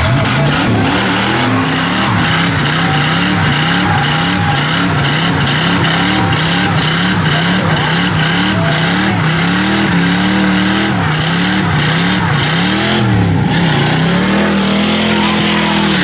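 Fox-body Ford Mustang doing a burnout. The engine is held at high revs, its pitch swinging up and down about twice a second as the throttle is worked, over the hiss of the spinning rear tyre. Near the end the revs dip, then settle steadier and higher.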